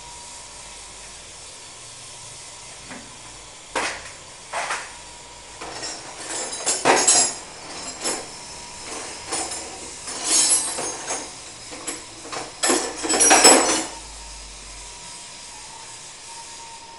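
Steel bar worked against the body of a blue industrial pump: two sharp metal knocks, then several irregular bursts of clanking and scraping, the loudest near the end. A faint steady tone runs underneath.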